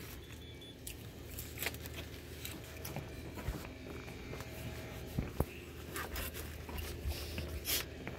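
Handling noise from a handheld phone being swung about while walking: scattered light clicks and rustles over a steady low hum.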